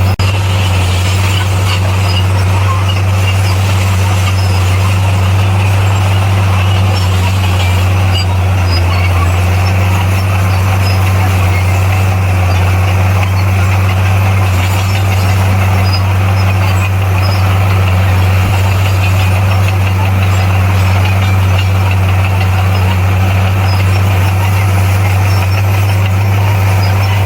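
Bulldozer's diesel engine running steadily under load, a loud, even low drone.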